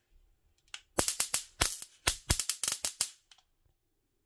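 Handheld electric fly zapper crackling: a quick, irregular run of sharp electric snaps as sparks arc across its high-voltage grid while the activation button is held. The snaps begin about a second in and stop after about two seconds.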